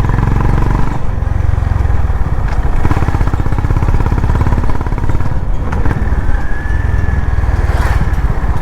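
Honda CB350RS's single-cylinder engine running steadily, its exhaust beat a fast, even pulse throughout.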